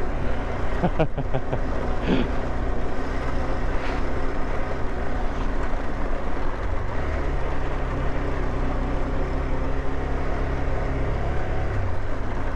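KTM 390 Adventure's single-cylinder engine running steadily as the bike is ridden along a dirt trail, with a dense low rumble. There is a short cluster of knocks about a second in, and the engine note shifts about seven seconds in.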